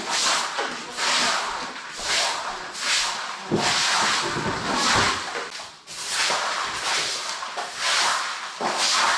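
A stiff-bristled broom sweeping debris across a gritty concrete floor: a scratchy swish with each stroke, about one a second, with a couple of duller knocks near the middle.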